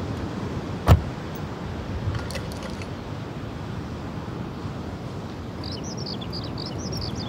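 Outdoor ambience beside a parked car: a steady low rumble, one sharp knock about a second in followed by a few light clicks, and small birds chirping rapidly from near the end.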